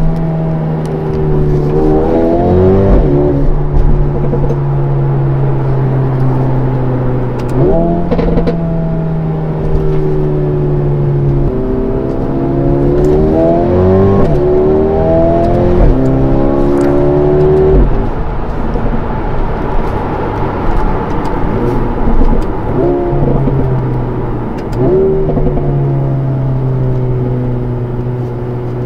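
Mercedes-AMG CLA 35's turbocharged 2.0-litre four-cylinder in Sport Plus with the exhaust valves open, heard from inside the cabin while driving. The engine note climbs and drops back again and again as the car accelerates and changes gear, with steady cruising stretches between.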